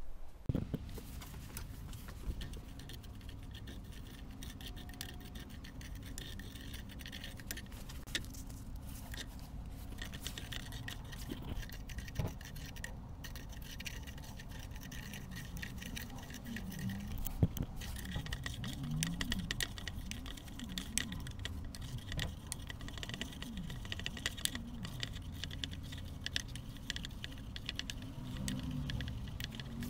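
Wooden spoon stirring a dry potassium nitrate and sugar mixture in a stainless steel pot, with repeated gritty scraping and light clicks against the metal over a steady low rumble.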